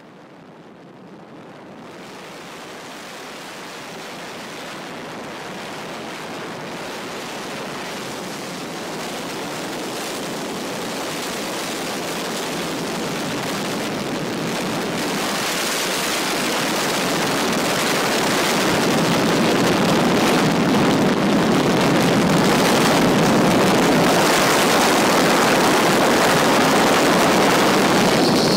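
Wind rushing over the microphone of a flex-wing ultralight trike in flight: a steady, even rushing noise that grows gradually louder.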